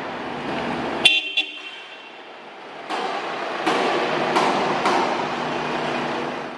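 Workshop noise: a steady clatter with a few sharp knocks, and a brief ringing toot about a second in.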